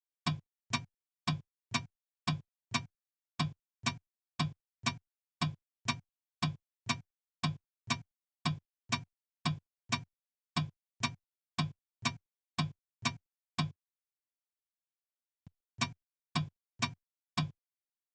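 Clock ticking, about two ticks a second, steady and even. The ticking stops for about two seconds near the end, then four more ticks follow.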